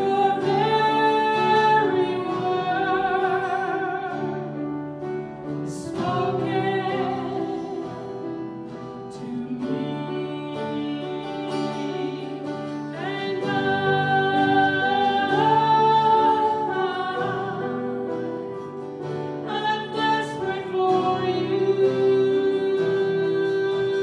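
A worship song sung over instrumental accompaniment, the voice holding long notes with vibrato.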